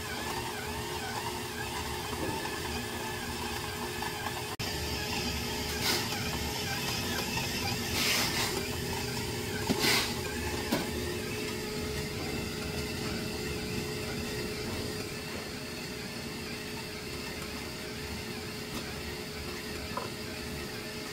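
A steady machine hum, with a few brief clatters or scrapes about 6, 8 and 10 seconds in.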